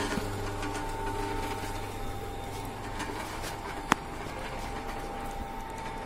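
Cutaway three-cylinder petrol engine teaching model turned over by an electric motor, running steadily with a thin constant whine and low hum. A single sharp click comes about four seconds in.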